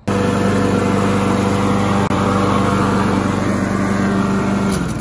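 Briggs & Stratton Quantum single-cylinder engine on a Craftsman self-propelled push mower running at a steady, even speed, its air-vane governor freshly cleared of a mouse nest. The engine is shut off near the end and dies away.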